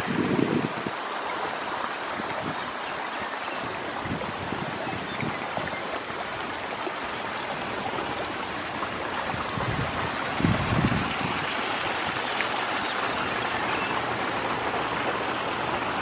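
Water rushing and splashing steadily over small rock-lined waterfalls in a stream. Brief low rumbles come right at the start and again about ten seconds in.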